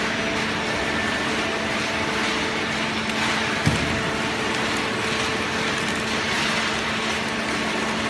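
Horizontal waste baler and its feed conveyor running: a steady machine hum and hiss with a few held tones, and one sharp knock a little before halfway through.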